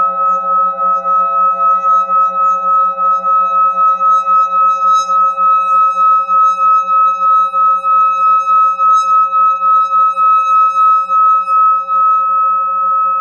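Metal singing bowl held on the palm and sung by rubbing a wooden stick around its rim: a steady ringing tone of several pure pitches, the highest the loudest, pulsing about three times a second. Near the end the pulsing eases into a smoother hum.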